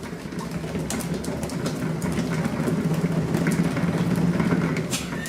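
A steady motor or engine hum, building in level and easing off near the end, with scattered faint clicks.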